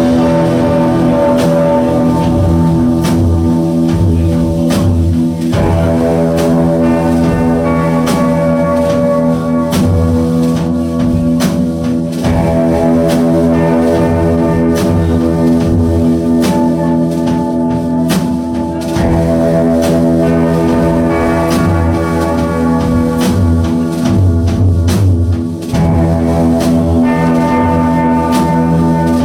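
Live rock band playing a driving, repetitive piece: a steady drum beat under sustained, droning guitar chords.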